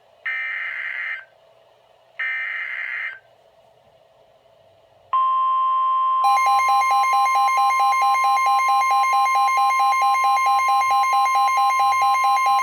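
NOAA Weather Radio alert over a radio speaker: the last two bursts of the warbling SAME digital header, then the steady 1050 Hz warning alarm tone that announces a warning broadcast. About a second after the tone begins, a weather radio's own alert beeping starts on top of it, a rapid even pulsing beep.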